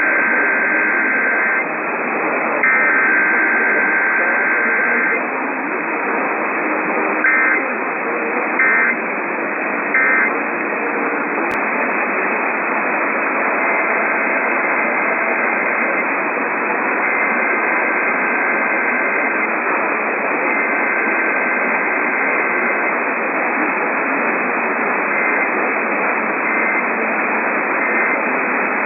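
Heavy radio static from an off-air receiver, over which the two-tone warble of EAS SAME data bursts plays: two longer bursts in the first five seconds, then three short bursts about a second and a half apart, the end-of-message code, and fainter, longer bursts later on.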